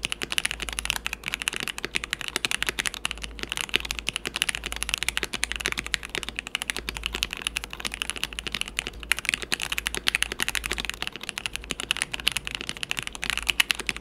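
Fast continuous typing on an R1 KBD67 Lite mechanical keyboard with GMK Laser keycaps, fitted with stock, factory-lubed Gateron Milky Yellow Pro linear switches that have seen a lot of use; the test moves to stock Gateron Box Black Ink switches near the end. Quick, dense keystroke clacks with no letup.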